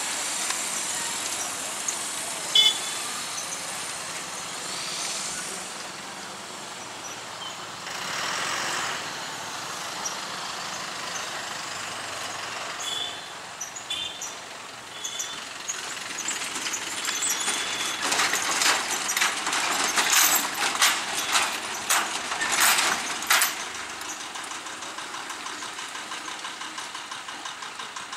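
Road traffic crossing the railway tracks at a level crossing, mostly motorcycles with their engines running. From about two-thirds of the way through come several seconds of rapid, loud rattling clatter.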